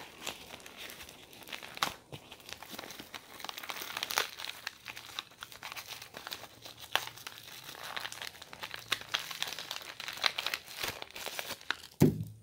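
Plastic packaging crinkling and crackling as it is handled and pulled open, with irregular sharp crackles. A dull knock near the end.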